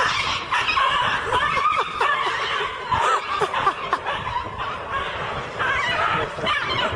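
People laughing and snickering in quick short bursts.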